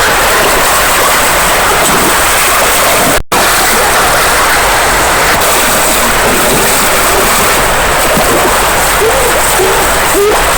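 Rushing river water, a loud steady rush with a brief break about three seconds in. A few short chirps come in near the end.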